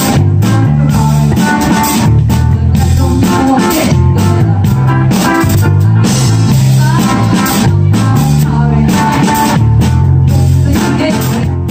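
Live band playing: electric guitar over bass and a drum kit keeping a steady beat.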